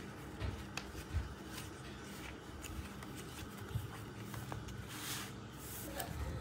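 Hands handling journal paper and a plastic pouch: soft rustling and small taps and clicks, with a louder crinkle of plastic about five seconds in.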